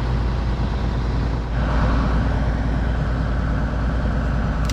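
Diesel farm machine engine running steadily with a low drone; about a second and a half in, a higher rushing noise joins it and carries on.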